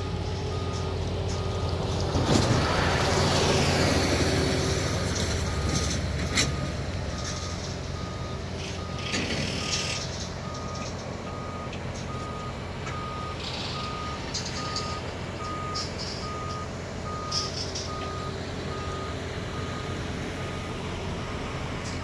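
Backup alarm of a reversing construction vehicle, a single-tone beep repeating at an even pace, over the steady drone of heavy diesel machinery. A louder surge of engine and rumbling noise swells and fades about two to five seconds in.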